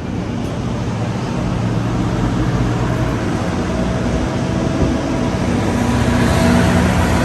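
Train passing with a diesel locomotive engine running, growing steadily louder as it approaches.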